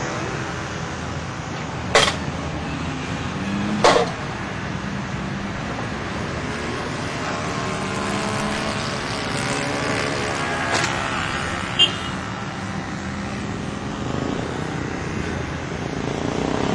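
Radio-controlled Yak-54 model plane's engine droning overhead in flight, its pitch wavering as it flies. Two sharp knocks come about two and four seconds in.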